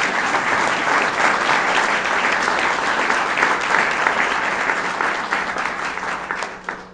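Audience applauding: many hands clapping in a dense, even patter that tapers off and stops just before the end.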